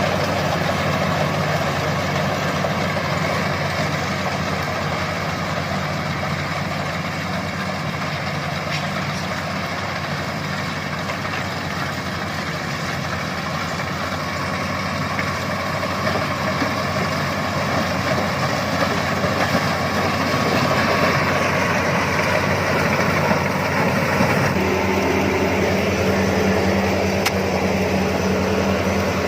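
Engine of a corn harvesting machine running steadily, a continuous mechanical drone; about three-quarters of the way through its note shifts to a steadier, stronger low hum.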